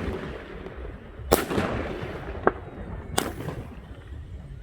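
16-shot 28 mm consumer firework battery (Röder Special Edition No.1) firing. Two loud bangs about two seconds apart, each trailing off in a brief hiss, with a fainter crack between them.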